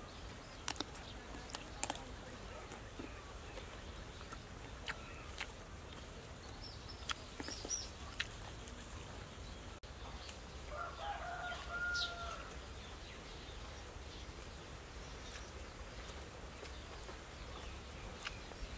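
A rooster crows once, a call of about a second and a half starting some eleven seconds in. Brief high bird chirps and a scattering of light clicks sound around it.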